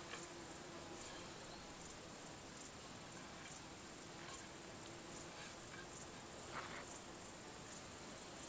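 Insects, crickets or similar, chirping steadily in high-pitched pulses.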